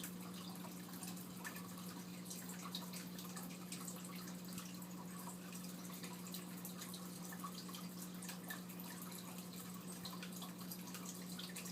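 Turtle tank filter running: a steady low hum with water trickling and dripping.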